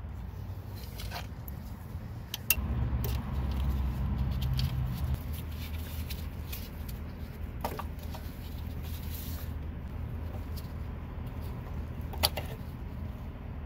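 A few sharp clicks of pliers and plastic wiring clips as the ABS sensor wire is worked free by hand, over a steady low rumble that grows louder for a few seconds about two seconds in.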